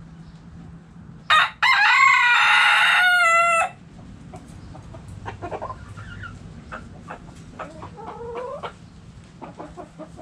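A rooster crows once, loud: a short opening note, then a drawn-out call of about two seconds that holds its pitch at the end. After it come softer, shorter hen clucks and calls.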